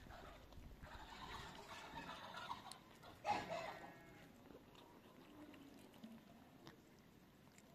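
Animal sounds at a low level, with one short call about three seconds in, louder than the rest.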